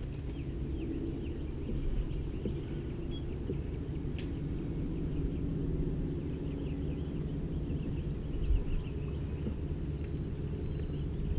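Birds chirping in many short, high, downward-sliding notes over a steady low hum.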